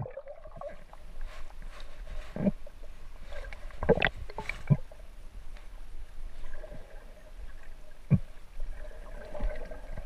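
Muffled underwater sound picked up by a submerged camera: a low wash with scattered sharp clicks and knocks, the strongest about four seconds in.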